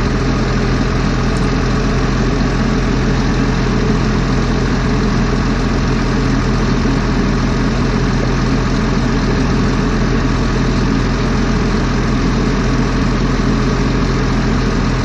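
Diesel engine of a forestry machine idling steadily.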